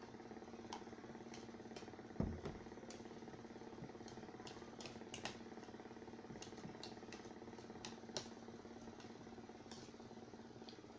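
A person eating: faint scattered clicks and smacks of chewing and utensils over a steady low hum, with one louder thump about two seconds in.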